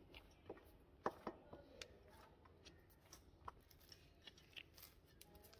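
Near silence with a few faint, scattered soft clicks and squishes of hands kneading a stiff flour dough in a stainless-steel bowl.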